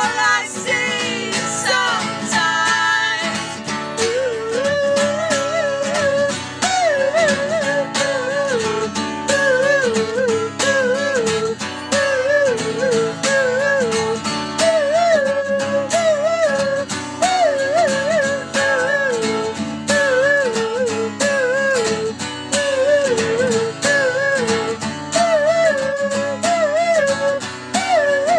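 A song: an acoustic guitar strummed steadily under a wordless sung melody that wavers up and down.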